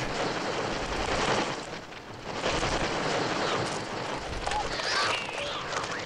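Film sound effects of a flock of birds attacking: a dense, rushing flutter of many wings, with a few faint, high bird shrieks near the end. The bird sounds are electronic, made on a Mixtur-Trautonium.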